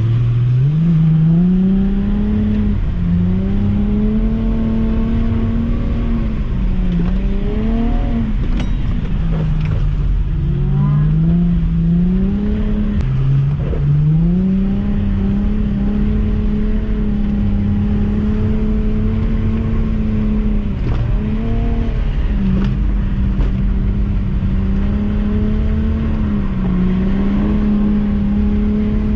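Nissan V35 Skyline 350GT's 3.5-litre V6, heard from inside the cabin, revving hard while the car is drifted on a wet skid pan. It climbs at the start, dips and climbs again several times, then is held high and steady for most of the second half.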